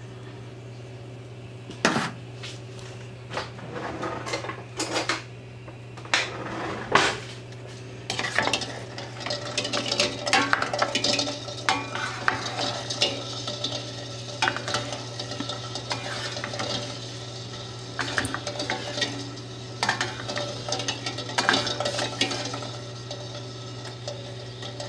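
Eggs being stirred in a stainless steel pot of water: the utensil knocks and scrapes against the pot and the eggs clink together. A few separate knocks at first, then near-continuous irregular clatter from about a third of the way in.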